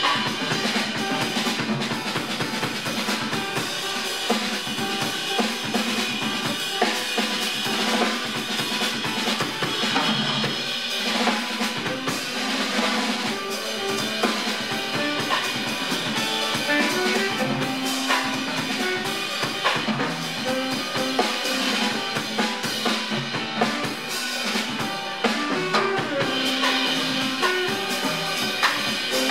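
Jazz quartet playing live, with the drum kit most prominent: kick, snare and rimshots and cymbals over upright bass, piano and tenor saxophone.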